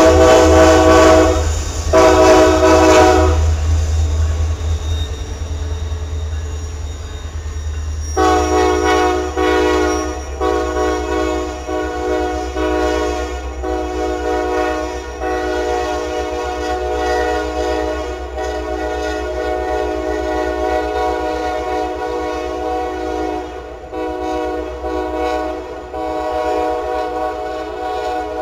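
Locomotive air horn sounding a chord: two short blasts, then from about eight seconds in a long held blast with a few brief dips, over the steady low rumble of the locomotive.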